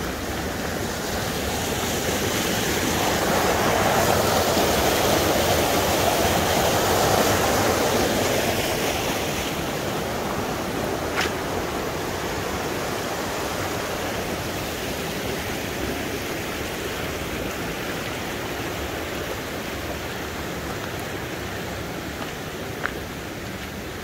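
Mountain creek rushing over rocks and small rapids, a steady noise that grows louder for a few seconds early on and then slowly fades. Two brief sharp clicks stand out, one near the middle and one near the end.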